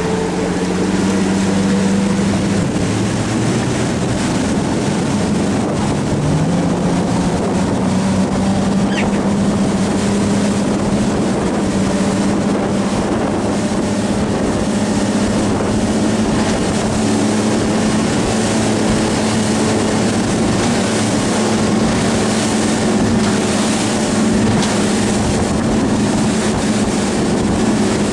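Motorboat engine running steadily under way, with wind and water noise from the moving boat. Its hum steps up slightly in pitch about six seconds in.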